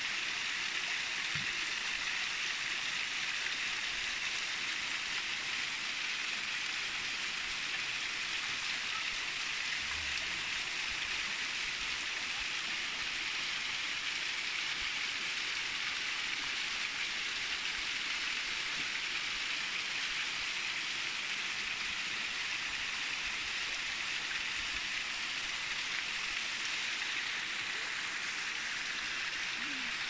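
Small waterfall: a thin stream of water falling down a rock face and splashing into a shallow pool, a steady, even hiss.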